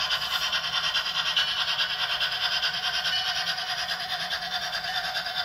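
Bachmann On30 model steam locomotive running along the track with its train, making a steady, fast, rhythmic rasping.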